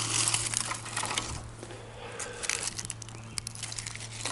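Dry kindling sticks rustling and clicking against each other as a handful is pulled from a pile, busiest in the first second and a half, then a few scattered clicks.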